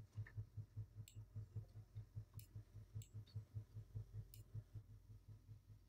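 Faint computer mouse clicks, a few sharp clicks spread out, over a low hum that pulses about five times a second.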